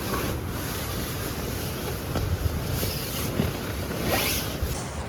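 Tent zipper pulled in a few short strokes, the clearest near the end, over a steady rushing background.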